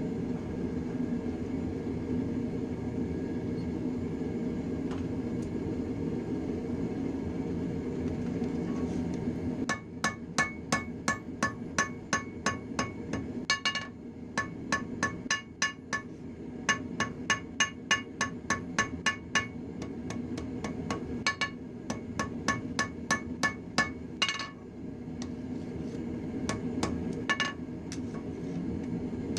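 Blacksmith's hammer striking a red-hot railroad spike on an anvil. The ringing blows come about three a second in runs with short pauses, starting about ten seconds in. A steady low rumble runs underneath throughout.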